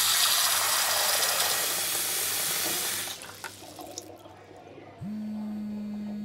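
Tap running hard into a washbasin, shut off about three seconds in. About two seconds later a mobile phone set to vibrate starts a steady low buzz that runs on through the end.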